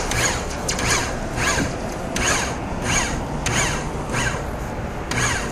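Ratchet wrench being worked back and forth to adjust a forming machine's roller setting, giving a run of short rasping clicks about one and a half strokes a second.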